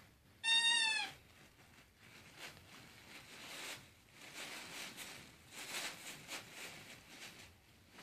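One high squeal of about half a second, just under a second in, then puppies scuffling and rustling as they wrestle over plush toys on a blanket.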